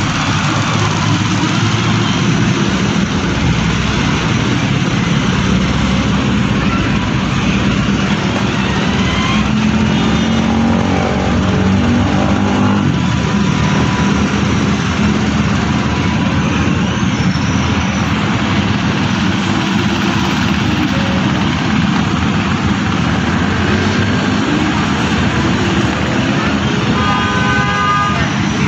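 Steady, loud vehicle or motor noise running throughout, with a brief tone near the end.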